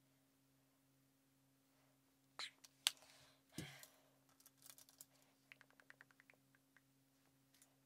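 Sped-up handling of makeup: a few sharp clicks and taps from an eyeshadow palette and brush, the sharpest about three seconds in, then a quick run of light ticks.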